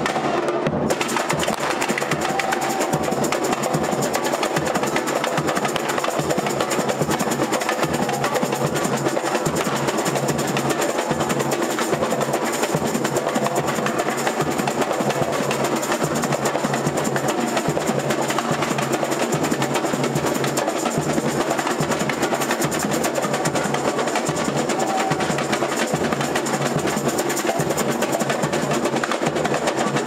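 Samba percussion section (bateria) playing together, with surdo, caixa, tamborim and timbal drums in a steady, continuous samba rhythm.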